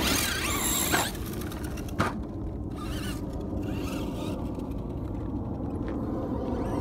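Brushless electric motor of a Traxxas Slash 2WD RC monster truck whining up in pitch as the truck accelerates away, with two sharp knocks about one and two seconds in. After that the whine comes and goes more faintly as the truck runs off over the gravel, over a steady low rumble.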